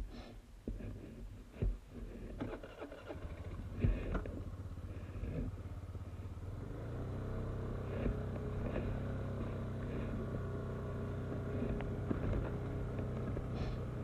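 An engine running at a steady speed, settling into an even hum from about seven seconds in, with scattered knocks and clatter before that.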